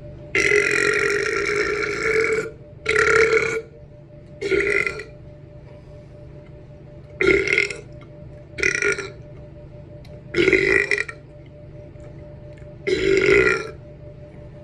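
A person belching loudly seven times: forced burps from gulped air. The first is long, about two seconds, and six shorter ones follow with pauses between.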